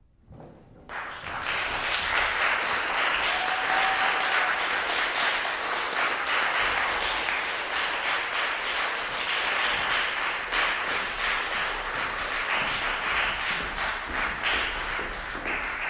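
Small audience clapping in a concert hall, the applause starting about a second in after a moment of quiet and holding steady.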